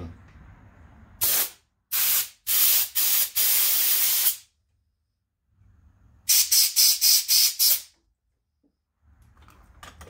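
Compressed-air blow gun blasting air through the carburetor's main-jet seat, hissing loudly, to clear out the broken-up fuel screen. First come about five blasts, the last one longer. After a pause there is a quick run of about six short puffs.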